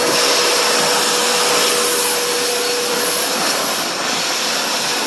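Shop vacuum running steadily, an even rushing hiss with a faint hum in it that fades out a little past halfway.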